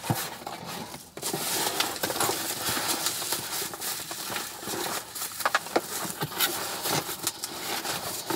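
Packaging being rummaged through and unwrapped by hand: continuous rustling and crinkling with many small clicks and taps.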